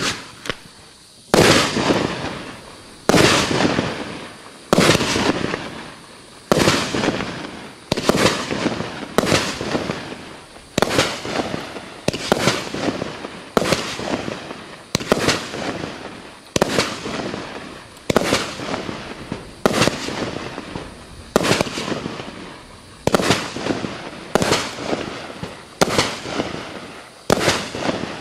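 NCI 'Let It Ride' 500-gram, 25-shot firework cake firing shot after shot, about one every one and a half seconds. Each shot is a sharp bang followed by a noisy tail that fades before the next one.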